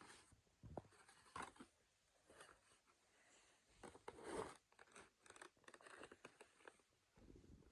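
Faint rustling, scratching and small clicks of a boxed model bus and its packaging being handled, with a louder crinkle about four seconds in.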